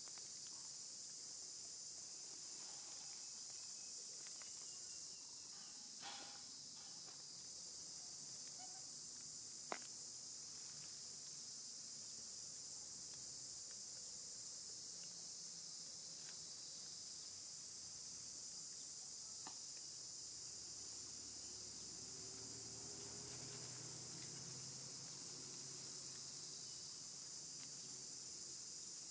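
Insects droning steadily with a constant high-pitched hiss, with a single sharp click about ten seconds in.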